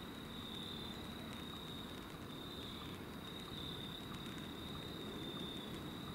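Crickets trilling steadily in one continuous high-pitched tone, with a brief break near the end, over a low, even background rumble.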